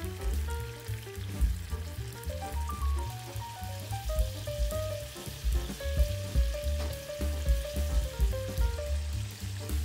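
Strips of beef sizzling in hot oil in a frying pan as they are turned with tongs. Light background music with a melody and a pulsing bass plays under the sizzle.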